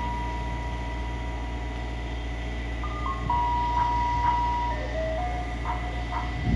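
Ice cream truck's rooftop loudspeaker playing its electronic chime melody, one clear note at a time stepping up and down, with a short pause about two seconds in. A low steady rumble runs underneath.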